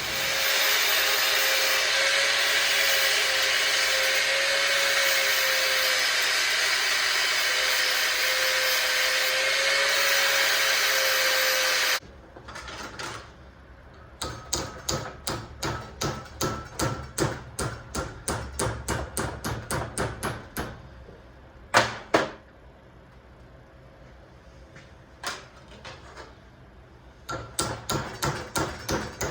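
Angle grinder running steadily against steel for about twelve seconds, grinding weld beads smooth, then cutting off suddenly. After that, a hammer strikes metal repeatedly, about two to three blows a second, with short pauses.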